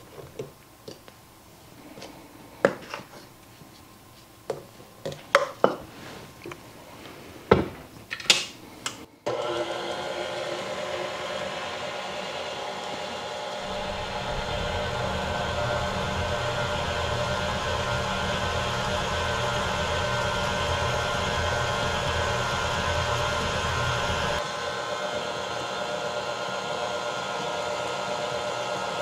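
A series of sharp taps and knocks, then about nine seconds in a KitchenAid tilt-head stand mixer starts abruptly. It runs steadily with a motor whine as its flat beater works a stiff cookie dough of flour and graham cracker crumbs. A deeper low rumble joins for about ten seconds in the middle, then drops away while the motor keeps running.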